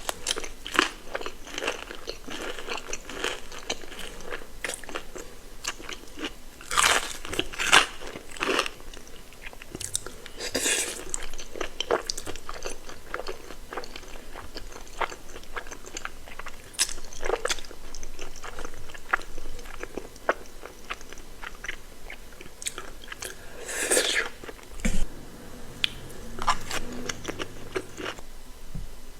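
Close-miked eating: crispy fried chicken crunching between the teeth and being chewed, with many small crackles and a few louder crunching bites spread through.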